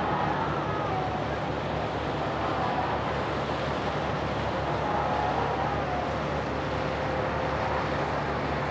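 Passenger ferry's engines droning steadily in a low hum as it crosses the harbour, over an even rushing noise of wind and water.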